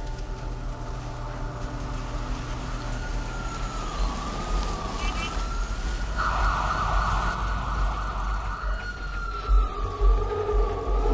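Emergency vehicle siren wailing, its pitch sliding slowly up and down, over a low rumble of city traffic, with two low thuds near the end.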